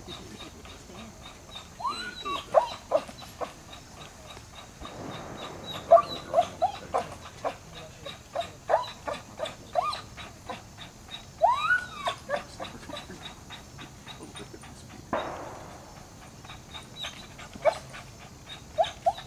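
K9 dog whining in short high-pitched yelps while gripping a bite suit. A few of the whines rise and fall in pitch, and two longer noisy bursts come at about five and fifteen seconds.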